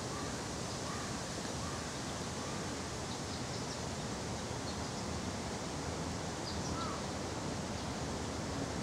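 Steady outdoor background noise, an even hiss, with a few faint short bird calls scattered through: several in the first two seconds or so and one about seven seconds in.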